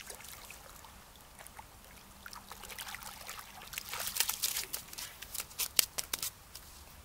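A hooked carp splashing and thrashing in shallow water as it is pulled up to the bank, the splashing building to its loudest around the middle. Near the end come a few sharp slaps as the fish lands on the wet shore.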